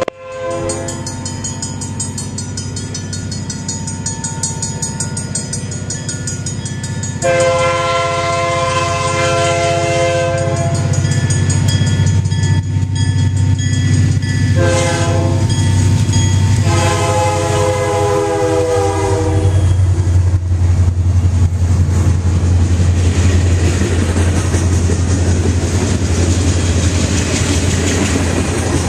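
Freight train led by two EMD SD40 diesel locomotives sounding its air horn in the grade-crossing pattern: long, long, short, long, getting louder as it nears. About two-thirds of the way in, the locomotives' diesel engines rumble past with wheels clicking over the rail joints.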